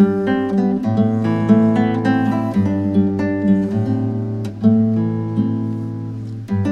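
Alhambra Pro Exotic nylon-string classical guitar played fingerstyle: a flowing run of plucked melody notes and chords over sustained bass notes, with a brief dip near the end before a new chord is struck.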